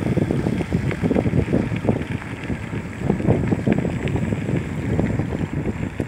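Wind buffeting the microphone of a camera carried along at riding speed: a loud, irregular low rumble with no steady pitch.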